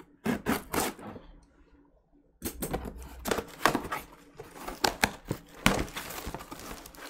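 Cardboard shipping box being opened by hand: a few quick sharp strokes of cardboard and tape just after the start, then from about two and a half seconds in a busy run of tearing, rustling and knocks as the flaps are pulled apart.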